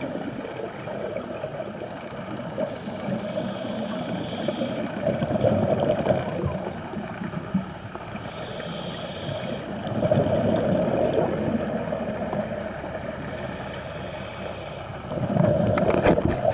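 Scuba diver breathing through a regulator, heard underwater: three breaths about five seconds apart, each a thin hissing inhale through the demand valve followed by a louder rush of bubbling exhaust.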